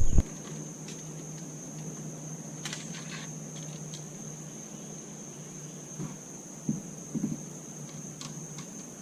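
Steady high-pitched trilling of an insect chorus in the early-morning bayou, with a few soft knocks and clicks scattered through it.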